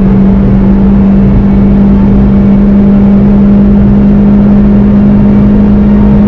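Onboard sound of a Volkswagen Golf 7 GTI TCR's turbocharged two-litre four-cylinder running at high revs in one gear at around 190–200 km/h: a loud, steady drone, with road and wind noise underneath.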